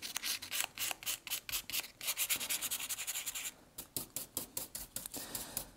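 Sanding block rubbing over the edges of dry raised gesso in quick back-and-forth strokes, several a second. There is a short pause about three and a half seconds in, then the strokes resume.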